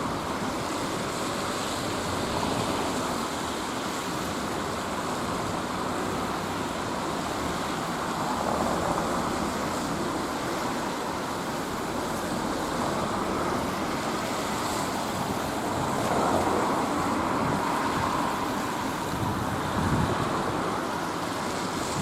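Strong wind rushing and buffeting the microphone in a snowstorm, a steady roar that swells with gusts about a third of the way in and again past the middle.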